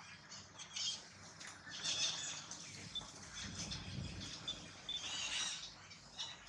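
Outdoor ambience of scattered short, high-pitched chirps and squeaks, with a low rumble about three and a half to four seconds in.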